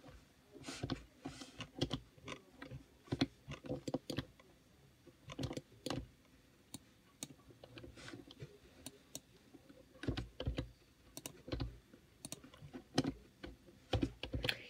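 Computer keyboard keys and mouse buttons clicking in irregular clusters with short pauses, a few harder key presses near the end.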